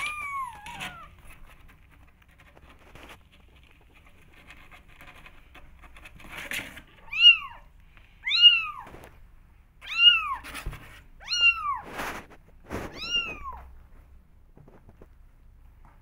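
Young kittens meowing: one falling meow at the start, then five high meows that rise and fall, about one every second and a half, from about seven seconds in. A few light knocks fall between the meows.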